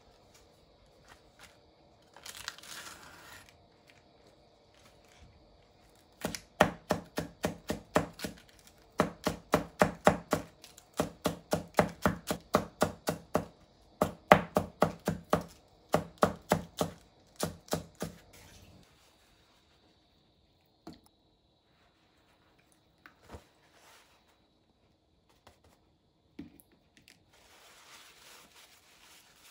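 Kitchen knife thinly shredding iceberg lettuce on a wooden cutting board: a long run of quick, even chopping strokes, about four a second, that stops a little after halfway, followed by a few single knocks.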